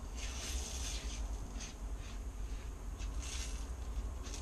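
Ground spices (chili, cumin and coriander powder) frying in ghee in a non-stick frying pan: a soft sizzle, with a spatula stirring and scraping the pan in two short strokes, about half a second in and about three seconds in, over a steady low hum.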